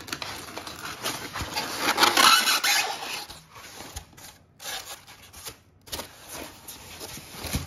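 Polystyrene foam packing blocks rubbing and scraping against each other and against plastic wrap as an item is lifted out. The sound is loudest about two seconds in and comes and goes, with a knock near the end.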